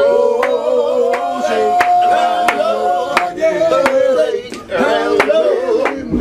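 A group of men singing a song together in harmony, with sharp hand claps keeping an even beat about twice a second.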